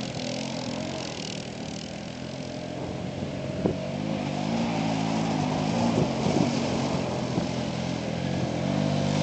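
ATV engines running: a steady idle close by, and another quad revving up and down as it drives through the mud, growing louder near the end as it comes closer.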